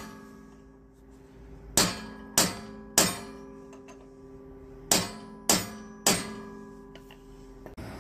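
Metal tool striking the steel hydraulic accumulator bottle six times, in two sets of three about half a second apart. Each strike leaves the bottle ringing with the same steady low tones, fading slowly.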